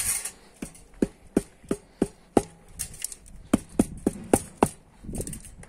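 A motorcycle exhaust pipe knocked again and again against wooden boards, about three sharp knocks a second in two runs with a short pause between, shaking loose carbon deposits from inside the pipe.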